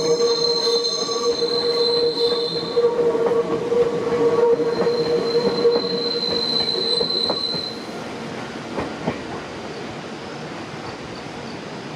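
Nankai Koya Line train with its wheels squealing against the rails: a steady high-pitched squeal over the running noise. About eight seconds in the squeal dies away, leaving a quieter rumble with a few clicks.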